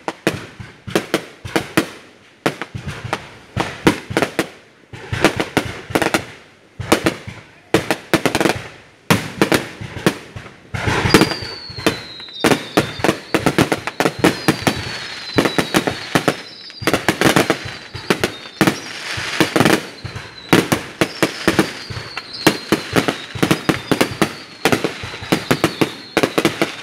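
Fireworks display: a dense run of sharp bangs and crackles. About a third of the way in, repeated falling whistles join the bangs, roughly one a second.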